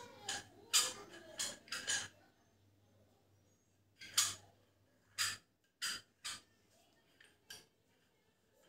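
Handling noise from assembling a pedestal fan: sharp clicks and clinks as the fan's white upright pole is turned and knocked in the hands. They come in two bunches, about five quick ones, a pause of about two seconds, then several more spaced out.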